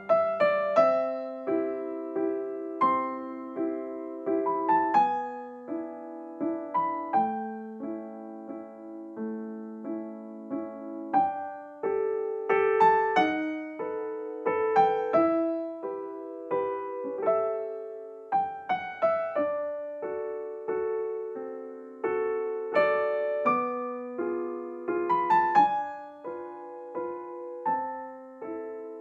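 Background piano music: a melody of struck notes and chords, each note fading after it is played.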